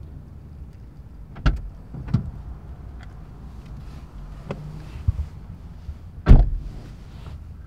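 Car passenger door clicking open, a person climbing in with a few knocks and some rustling, then the door shutting with a heavy thump near the end, the loudest sound.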